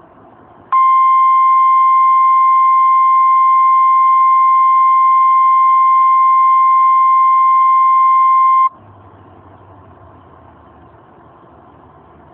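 Emergency Alert System attention signal: a loud, steady single-pitched beep held for about eight seconds, starting just after the beginning and cutting off sharply, leaving a faint hiss.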